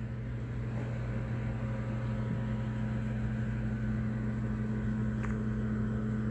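A steady low hum from a running electric motor or appliance, with two constant tones and no change in pitch.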